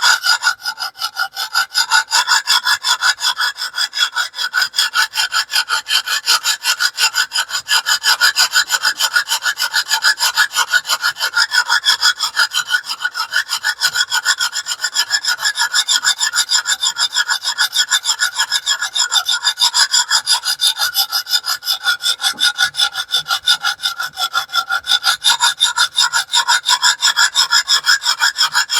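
Sharpening stone on a TS Prof Kadet Pro guided sharpener stroked rapidly back and forth over the edge of a small cleaver-shaped knife: a steady rhythmic scraping at about three to four strokes a second. The stone is grinding the bevel, working toward raising a burr.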